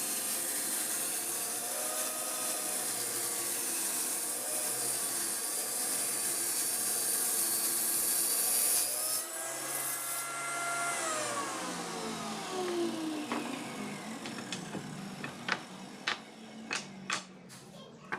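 Electric saw running and cutting wood, its motor tone wavering under load. About eleven seconds in it is switched off and the pitch falls as the blade spins down. A few sharp knocks follow near the end.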